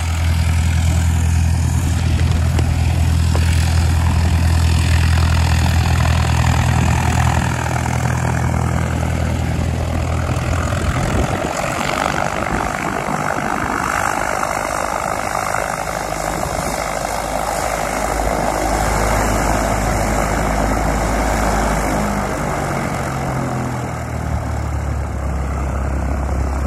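A single-engine light airplane's propeller engine running at taxi power with a steady low hum. About halfway through the hum gives way for several seconds to a broader rushing sound, then returns, dropping a little in pitch near the end.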